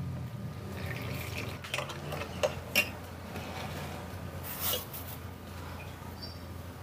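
Metal spoon clinking against an enamel mug while hot cocoa is stirred: a few separate light clinks.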